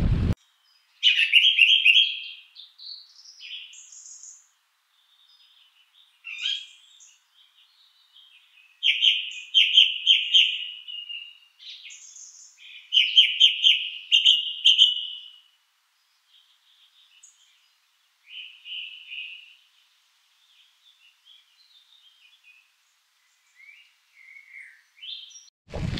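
A songbird singing: bright, high-pitched phrases of one to two seconds, repeated every few seconds, with softer chirps in between.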